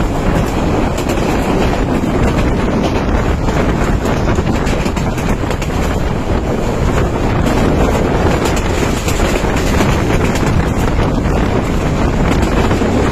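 Wind buffeting a microphone held out of the window of a fast-moving passenger train, over the train's steady running noise on the rails.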